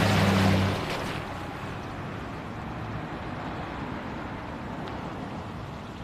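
A car drives close past through standing water, its tyres splashing and its engine humming, loudest in the first second, then easing into steady street noise.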